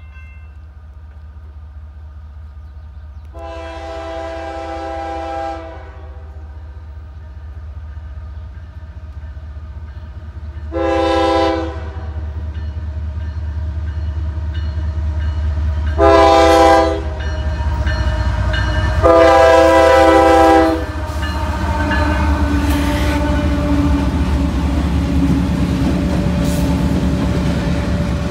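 Air horn of a CSX GE ES44AC-H freight locomotive sounding four blasts for a grade crossing; the first and last blasts are longest and the last two are loudest. Under it is the deep, steadily rising rumble of the approaching diesel locomotives. Near the end they pass close, with steel wheels clattering over the rails.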